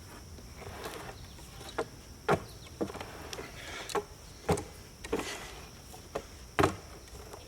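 Pry bar ratcheting a boulder-laden rock sled along its track: a run of sharp clunks and knocks at irregular spacing, about seven in all, with scraping between them.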